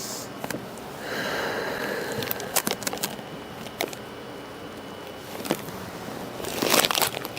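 A person breathing in deeply and letting the breath out slowly on cue during an assisted stretch, with a few small clicks.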